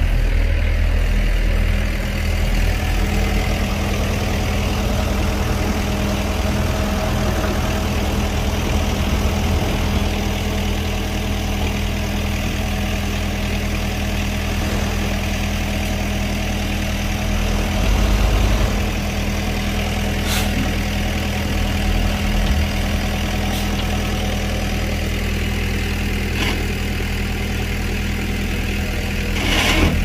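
Heavy diesel engine of earthmoving machinery running steadily at low revs, with a few short knocks in the second half.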